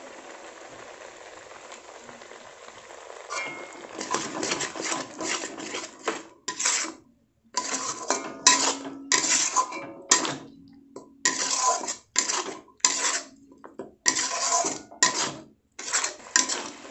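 Flat metal spatula scraping and stirring thick onion and ginger-garlic paste around a metal kadai as it fries. After about three seconds of faint steady frying hiss, the strokes come one after another, scraping with short metallic clinks of spatula on pan.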